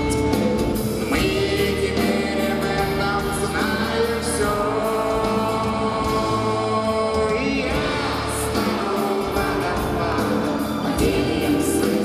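Live concert music heard from the audience: a band playing with singing through the PA, the notes long and held.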